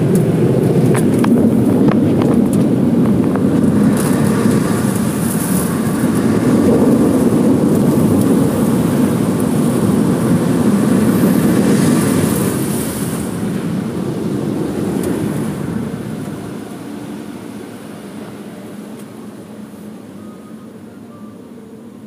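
Automatic tunnel car wash machinery heard from inside the car's cabin: a loud, muffled, rushing rumble that eases off after about fourteen seconds and fades away as the car leaves it behind.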